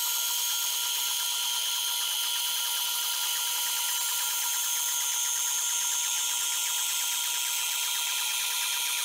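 Bandsaw with a 3/8-inch blade at very low tension and no side guides ripping a log on a sliding sawmill carriage: a steady cutting hiss over the whine of motors. The dust collector runs alongside it.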